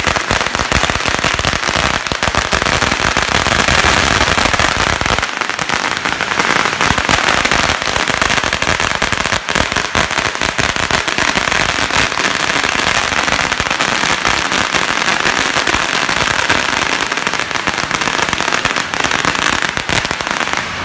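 Strings of Chinese firecrackers going off in a nonstop barrage: a dense, unbroken stream of rapid sharp pops and crackles.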